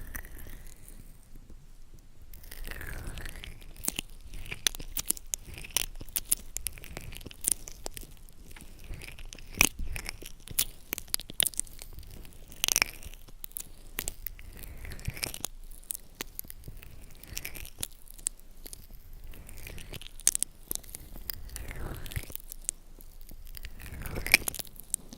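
Close-up ASMR trigger sounds: irregular crisp clicks and crackles, with a few soft swishing sweeps now and then.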